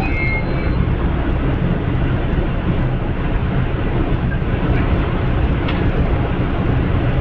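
Steady low rumble from an Amtrak Superliner passenger train standing at the platform, with a few faint clicks in the second half.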